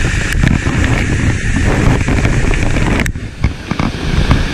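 Steady rush of fast river water pouring off a dam spillway, with wind buffeting the microphone. The roar dips briefly about three seconds in, and a few small knocks follow.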